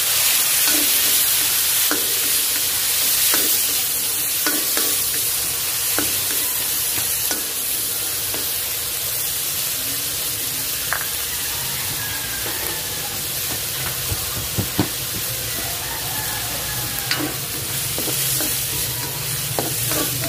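Shrimp heads frying in hot oil in a pan, a steady sizzle, stirred with a utensil that knocks against the pan every second or two.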